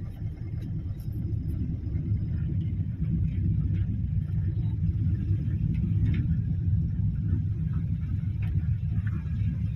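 Steady low rumble inside a car's cabin as it drives through a waterlogged street, engine and tyres running through standing water, with a few faint ticks.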